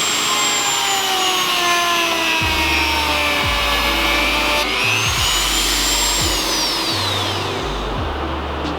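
A high-speed power tool cutting through a plastic car bumper, its whine falling and rising in pitch, over background music with a deep stepped bass line.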